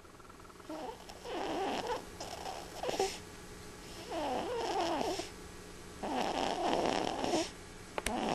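Snoring: a run of rough, rattling snores, each about a second long, coming every second or two, with a sharp click about eight seconds in.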